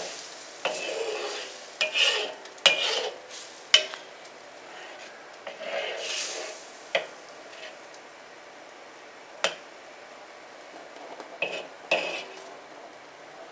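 Metal wok spatula stirring and scraping thick curry sauce around a black wok, in irregular strokes with sharp metal clicks where the spatula strikes the pan, over a faint sizzle of the simmering sauce. The stirring is busier in the first few seconds and again near the end.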